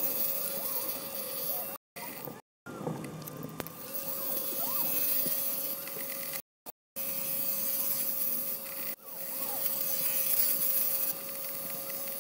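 Small milling machine's spindle running with a boring tool cutting the bore of a cast aluminium cylinder: a steady mid-pitched machine hum with cutting hiss over it, cut off abruptly several times.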